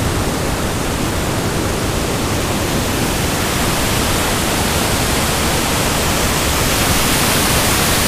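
Waterfall and rapids: a loud, steady rush of white water pouring over rock ledges into a churning pool.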